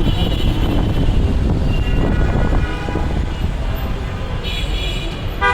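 Loud, steady rumble of road traffic and moving air on a city street, with scattered high tones and a brief cluster of them near the end.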